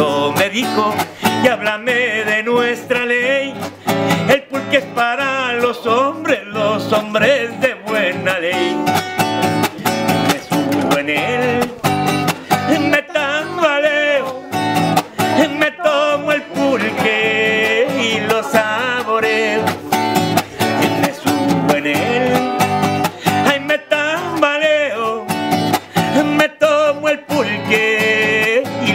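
Acoustic guitar strummed in a steady rhythm while a man sings.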